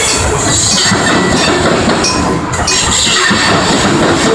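Covered hopper cars of a freight grain train rolling by: steady steel-wheel rumble with irregular clacks over the rail joints and a faint thin wheel squeal.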